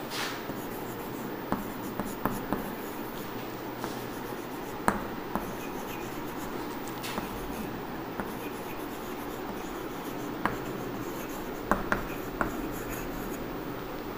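Chalk writing on a chalkboard: scattered sharp taps and scratches of the chalk as words are written out, over a steady background hiss.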